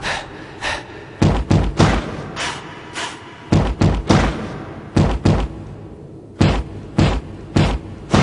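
Group of dancers stamping their feet in unison in a drill-style routine: loud thuds in a syncopated pattern of single and paired hits with short pauses, echoing slightly.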